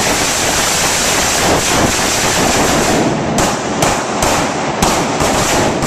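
Several AR-15 carbines firing rapidly and at once, shots overlapping into a continuous din, with single louder cracks standing out from about three seconds in.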